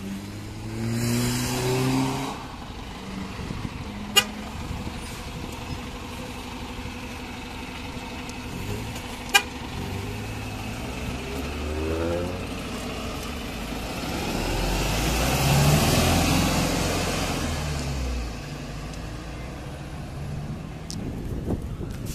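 Road traffic passing close by: engines pull away with rising pitch, and a heavy fire engine rumbles past, loudest in the second half. Two short, sharp toots stand out early on.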